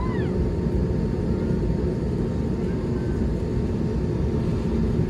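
Airbus A320neo cabin noise heard from a window seat over the wing: a steady low rumble of the engines at ground idle.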